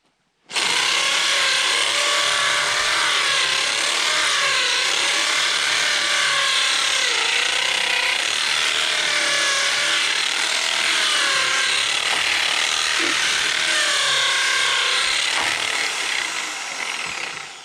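Power drill with a masonry bit running under load, boring into hard-packed frozen dirt jammed in a dozer blade. It starts about half a second in, its motor pitch dips and recovers repeatedly as the bit bites, and it winds down near the end.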